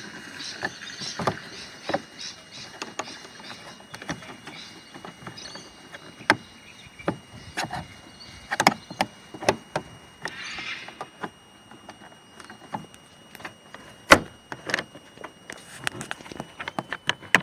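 Scattered clicks and knocks of a plastic car-door interior trim piece being worked loose by hand, with a short scraping rustle about ten seconds in.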